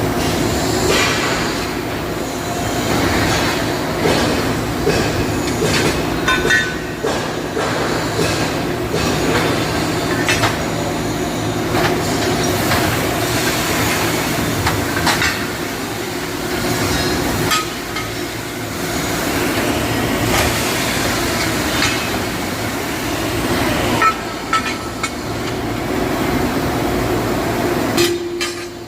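Hydraulic ironworker, an 80-ton punching machine fitted with a large V-notching die, running with a steady pump hum. Sharp metal clanks come every few seconds as the die notches steel angle.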